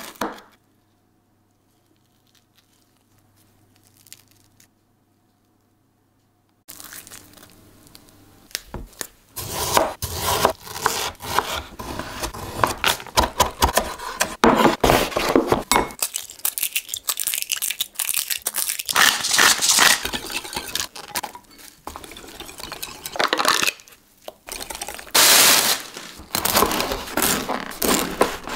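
The first few seconds are near silence. Then a chef's knife chops spring onions on a wooden cutting board in quick, repeated strokes. Later a serrated bread knife saws through a crusty baguette with a crunching sound.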